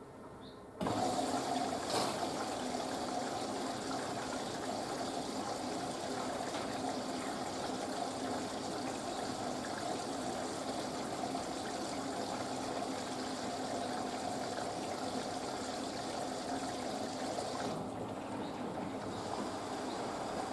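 Panasonic washing machine taking in water: the inlet valve opens abruptly and water rushes steadily into the drum. The flow thins slightly near the end.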